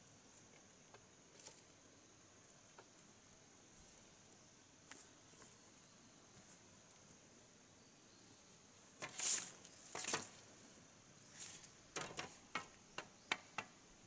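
Faint steady insect hum. About nine seconds in come two louder rustling scrapes, then a quick run of short sharp taps and clicks from handling on the bamboo slat floor.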